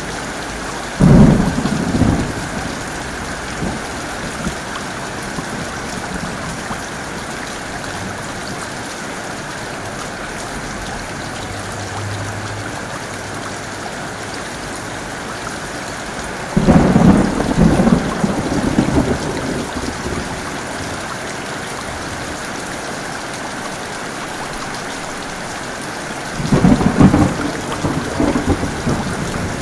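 Heavy rain falling steadily, hissing evenly, with three sudden loud claps of thunder that rumble for a second or two each: one about a second in, one past the middle, and one near the end.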